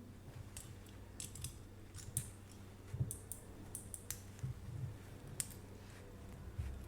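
Steel handcuffs being handled, giving scattered, irregular faint clicks from the cuffs' metal parts.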